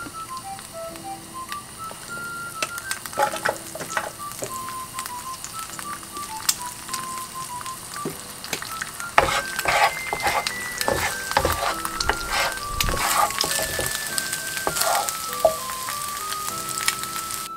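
Eggs sizzling in hot oil in a nonstick frying pan, then a wooden spatula scraping and stirring them into scrambled eggs, the scraping strokes coming thickest in the second half.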